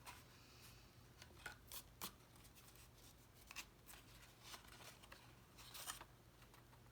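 Faint handling of cardstock: a few light taps and short rustles as the glued paper pieces are pressed and held in place, over a low steady room hum.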